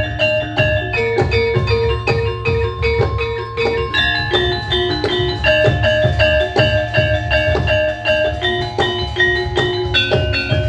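Music for a Javanese krido turonggo horse dance: a melody of struck, ringing notes over dense, steady drumming.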